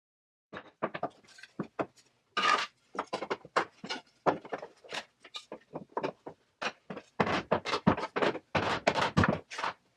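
Irregular knocking and clattering of plywood parts being handled and fitted together, with many sharp wooden knocks at an uneven pace, busier in the second half.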